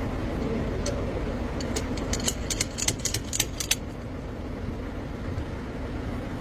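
A quick run of about a dozen sharp metallic clinks, like tools or bolts handled during car repair, between about one and four seconds in, over a steady low rumble.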